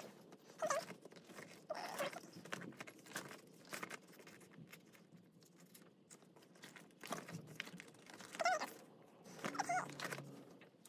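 Rustling and crinkling from handling plastic-sleeved and paper merch, broken by four short, high-pitched vocal calls, twice near the start and twice near the end.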